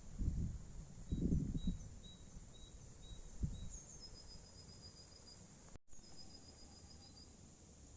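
Small birds calling in woodland: short high notes repeated and quick trills of even notes, with a few sharp falling notes, over a faint background hiss. Low muffled thumps or rumbles are the loudest sound in the first two seconds, and the sound cuts out for an instant a little before the end.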